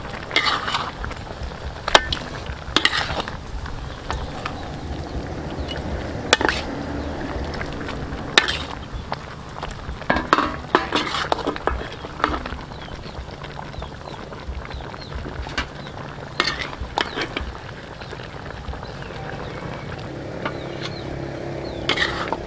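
A metal spatula scraping and clinking against a metal wok as pig feet are turned, with a steady sizzle of the pig feet frying in their reduced Coca-Cola sauce underneath.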